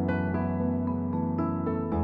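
Background music: a keyboard playing struck, piano-like notes over held chords.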